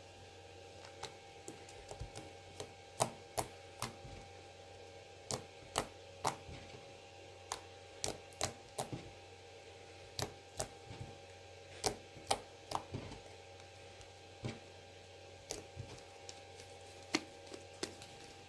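Fluffy shaving-foam slime being squeezed and stretched by hand, giving off irregular sharp clicks and pops as air pockets burst, over a faint steady hum.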